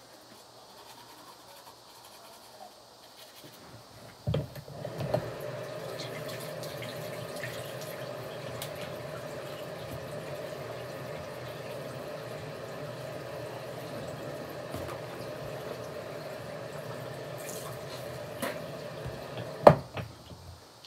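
Bathroom sink tap running steadily, turned on with a knock about four seconds in and shut off near the end, just after a sharp knock.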